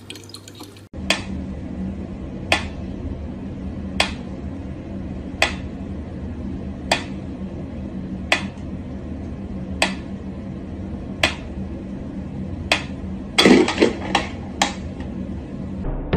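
Mechanical pendulum metronome ticking slowly, one sharp tick about every second and a half, over a steady low hum. Near the end a short cluster of louder knocks and scuffs breaks in.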